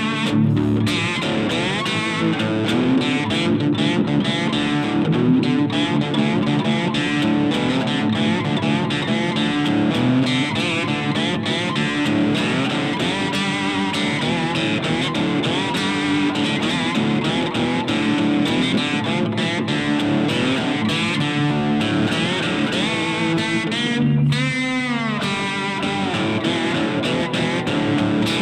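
Cigar box guitar played without vocals, a steady plucked riff repeating on low notes, with a sweeping bend in pitch about three-quarters of the way through.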